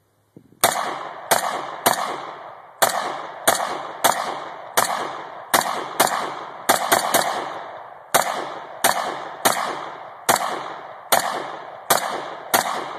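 Ruger Mini-14 Ranch Rifle, a semi-automatic .223, fired rapidly: about twenty shots at a steady pace of roughly one and a half a second, each ringing out briefly, with a short pause a little past the middle.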